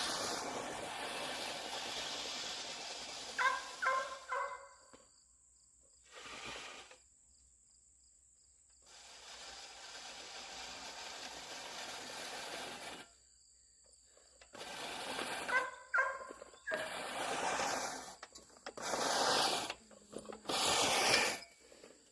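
Manual push reel lawnmower cutting thick grass in jerky spurts: the spinning blades whir and chop while it is shoved forward, then fall quiet as the grass bogs it down and it stops, three times over. Twice, short high pitched squawking notes come in with the cutting.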